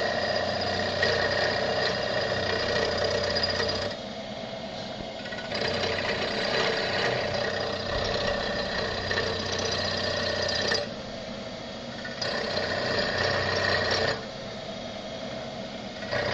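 Comet 3KVHD milling machine running, its cutter fed gently down into a wheel. The cutting sound drops away briefly about four, eleven and fourteen seconds in, leaving the quieter machine running, then picks up again.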